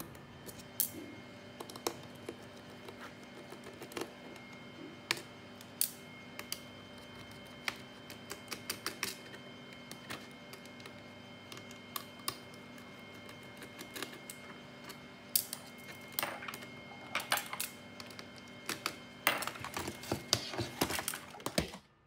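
Light, scattered clicks and taps of a small screwdriver working hidden screws out of a laptop's plastic bottom case, with the little screws and the case being handled. The clicks come closer together over the last several seconds, over a faint steady hum.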